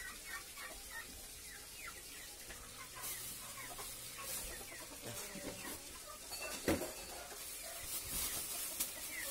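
Chickens clucking in many short calls, with plastic bags crinkling from about three seconds in and a single knock about two-thirds of the way through.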